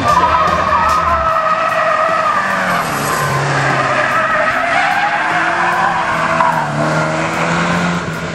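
Porsche 944 S2 drifting: its tyres squeal in a long wavering howl over the revving 3.0-litre four-cylinder engine, as the car slides through a corner and past close by.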